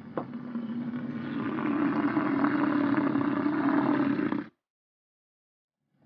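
Bison bellowing: one long, low, rough call lasting about four and a half seconds that cuts off suddenly, then starts again right at the end.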